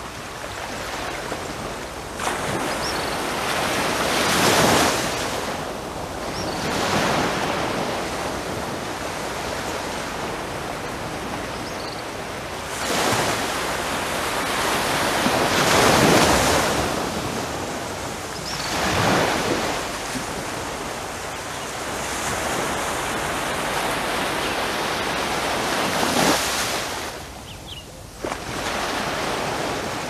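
Small sea waves lapping onto a sandy beach, each wash swelling and fading every few seconds, with the hiss of the backwash rolling tiny stones as it recedes.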